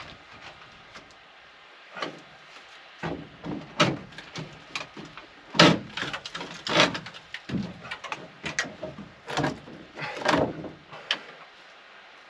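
Irregular wooden knocks, thuds and scrapes as a timber piece is handled and lifted into place against the shed's framing, busiest through the middle of the stretch.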